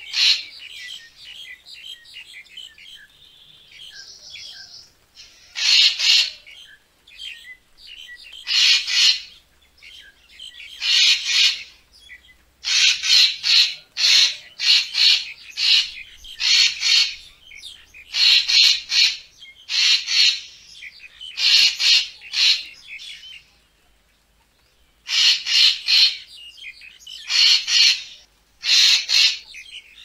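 Racket-tailed treepie calling: a string of short, loud, harsh notes, one every second or two, crowding into quicker runs in places, with a brief pause about three quarters of the way through. Quieter call notes fill the first few seconds.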